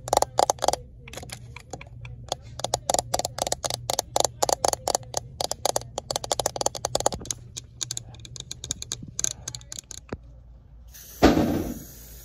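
Long fingernails tapping fast on a plastic phone case, in quick runs of sharp clicks. The tapping stops about ten seconds in, and a single loud thump follows near the end.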